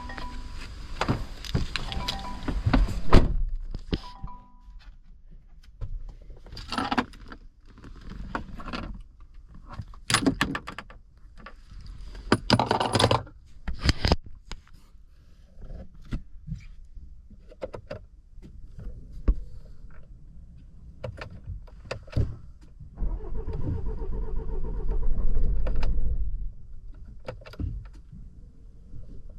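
Clicks, knocks and key jangling from handling a 2017 Land Rover Discovery Sport, with a dashboard warning chime sounding in the first few seconds. Near the end comes a louder, rougher stretch of about three seconds.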